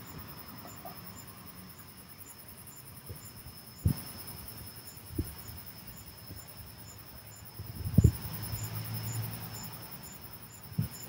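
Night insects chirping in a steady rhythm, about three short high chirps a second, over a faint steady high drone. A few soft low thumps come through, the loudest about four and eight seconds in.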